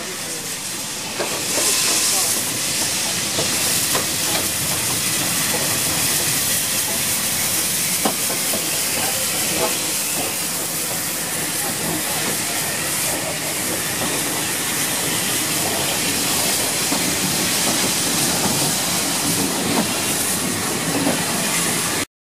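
Bulleid West Country class steam locomotive No. 34007 passing with a train of goods wagons: steady steam hiss and running noise, with the wagons rolling by behind it. It gets louder about a second in and cuts off abruptly just before the end.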